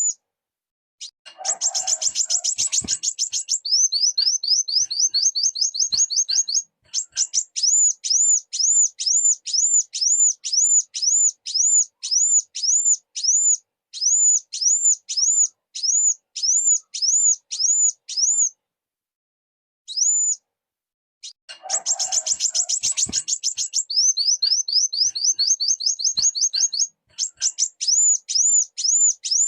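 Kolibri wulung sunbird singing in a repeating sequence. A short burst of fast buzzy notes is followed by a quick run of rising high notes, then a long string of high, arched whistled notes about two a second. After a pause the same sequence starts again.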